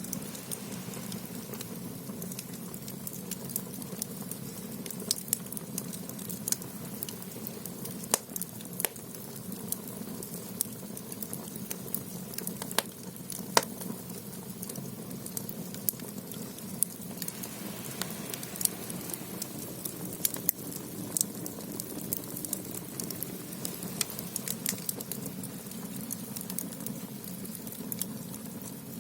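Firewood burning in the stoke-hole firebox of a Korean clay ondol (gudeul) floor-heating room: frequent irregular sharp crackles and pops over a steady low rush of the fire.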